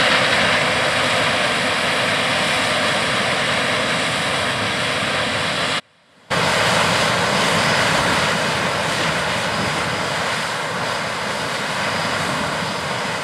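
Heavy harvest machinery running steadily in a corn field: a constant, loud machine noise with a faint high whine. It cuts out for about half a second near the middle, then resumes and eases off slightly toward the end.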